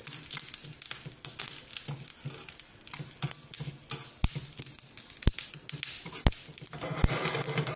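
Mustard seeds popping and crackling in hot oil in a small tempering pan while grated coconut and curry leaves fry, with a spoon stirring. The seeds are spluttering as the coconut browns, and a few sharper pops stand out in the second half.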